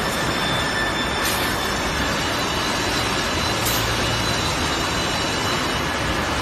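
Steady din of automatic pallet-packing machinery on a factory floor, with faint high whining tones and a couple of short hisses; a low hum comes in about halfway through.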